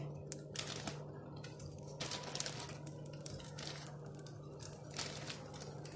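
Chicken seekh kababs sizzling faintly in a little hot oil in a nonstick frying pan, with scattered small crackles, over a low steady hum.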